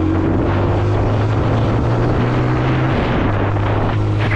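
Motorcycle engine of a TVS Apache RTR, a single-cylinder, accelerating hard through the gears. The engine note drops about three seconds in. Wind rushes over the microphone throughout.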